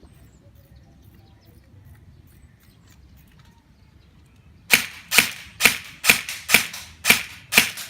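SAI GRY airsoft rifle, set up to shoot about 600 fps, fired in semi-auto: about seven sharp shots roughly two a second, starting about four and a half seconds in.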